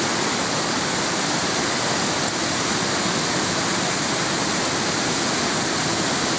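Waterfall rushing steadily, an even, unbroken roar of falling water.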